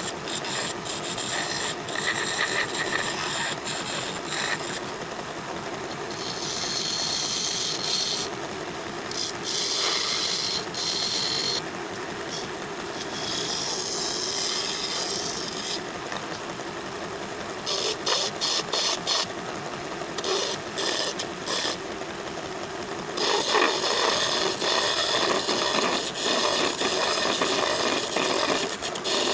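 A wood lathe spinning a wooden table-leg blank while a hand-held turning chisel cuts and scrapes it, a steady rasping that comes and goes as the tool is pressed in and eased off.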